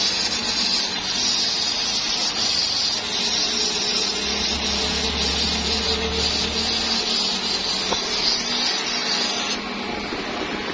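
Water spraying from a garden-hose spray nozzle onto a car's radiator and engine bay: a steady hiss that drops off near the end.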